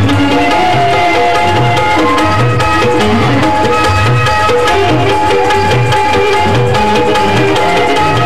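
Live stage-drama music: tabla keeping a steady rhythm of about two low beats a second under a melody of held notes.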